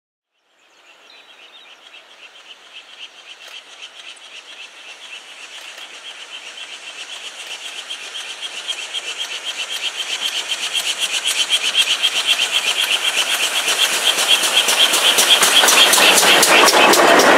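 Steam locomotive working a train as it approaches, its rhythmic exhaust beats growing steadily louder, with the clatter of wheels on the rails as it draws level near the end.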